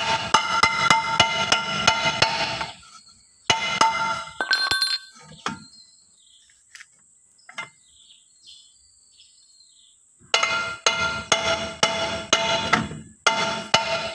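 Rapid hammer taps on a Toyota Hilux's rear brake drum, each with a metallic ring: a first run of about three seconds, a few more taps, a pause, then a second run from about ten seconds in. The drum is being driven on over new brake shoes whose thick lining makes it a tight fit.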